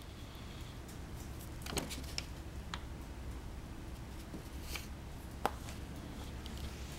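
Brown paper bag crinkling faintly now and then as it is handled with a cat inside, a few soft crackles and ticks over a low steady hum.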